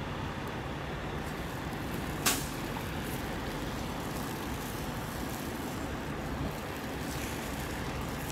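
Low, steady rumble of idling diesel truck engines, with a single sharp click about two seconds in.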